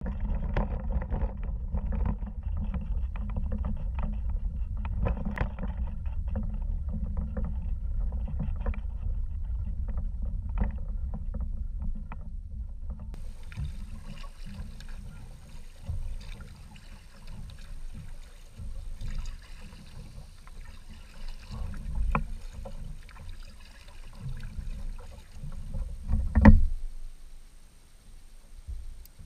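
A plastic sit-on-top kayak dragged over an asphalt ramp, its hull scraping with a steady low rumble and many small clicks. About halfway through, this gives way to quieter paddle strokes and water against the hull on the lake, with one sharp knock near the end.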